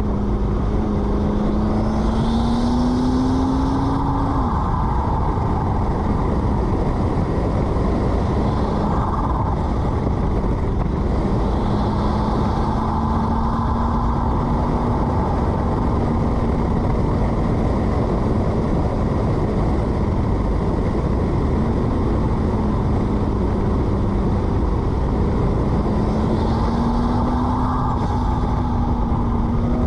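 McLaren MP4-12C twin-turbo V8 running under way over steady road noise. Its note climbs gently and drops back a few times, with brief higher hissing whooshes from the turbos several times.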